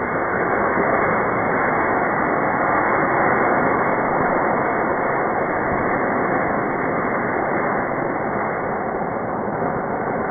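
Slowed-down sound of a model rocket's solid-fuel motor firing: a steady, muffled rushing noise that eases off a little towards the end.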